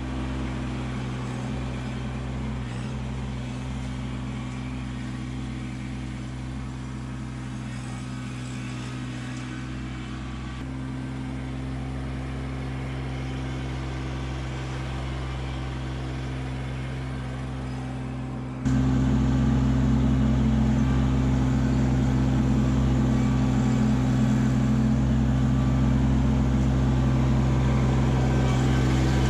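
Kubota compact tractor's diesel engine running steadily under grapple work, its steady hum changing about a third of the way through and jumping suddenly louder about two-thirds through.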